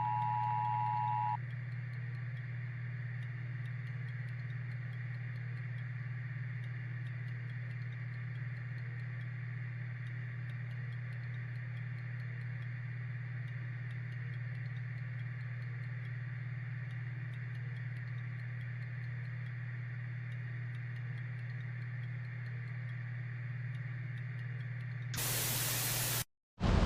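The two-tone EAS attention signal (853 and 960 Hz together) ends about a second in. After it comes dead air on the broadcast feed: a steady low hum with faint hiss. Near the end it gives way to a burst of loud static, broken by a brief dropout.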